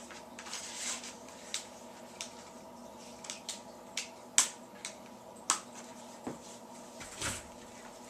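Sheathed blades and their packaging being handled: brief rustling and a string of sharp clicks and taps, the loudest tap about four and a half seconds in.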